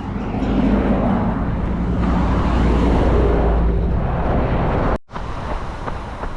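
Low rumble with a steady hum, like a motor vehicle going by, for about five seconds. After a sudden cut come quieter, evenly spaced footfalls of someone running on pavement.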